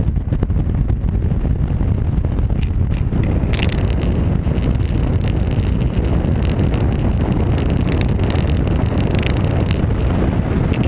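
Wind rushing over the microphone of a camera on a Honda Varadero motorcycle while riding, with road and engine rumble underneath. From about three and a half seconds in, the hiss grows brighter with scattered clicks.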